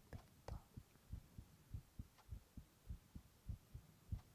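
A man's heartbeat: faint, low thumps in a steady rhythm, the beats falling in lub-dub pairs.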